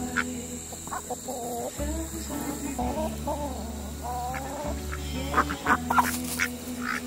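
Domestic chickens clucking: a run of short, wavering calls, then a few sharper, louder calls near the end.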